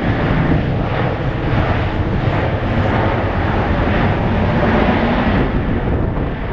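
Boeing 767-300F freighter's jet engines, a loud steady rushing noise, as the jet rolls out along the runway just after touchdown.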